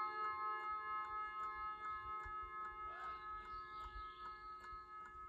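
The chime rods of a circa 1959 Junghans (HAC-branded) mantel clock ringing out and slowly fading after a chime. Under them, the clock's floating-balance movement ticks rapidly and evenly.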